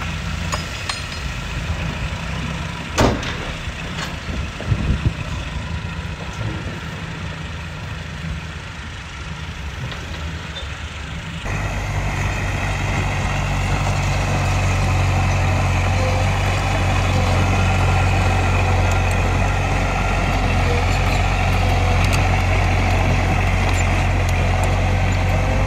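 Diesel dump truck running as rock and gravel slide off its raised bed, with a few sharp knocks of falling stone. About halfway through, the sound switches to a Komatsu D20A crawler bulldozer's diesel engine running steadily and louder under load as it pushes rock.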